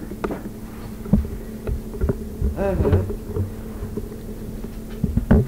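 Steady buzzing electrical hum on an old home audio recording, with a few small clicks and a short faint voice sound about two and a half seconds in.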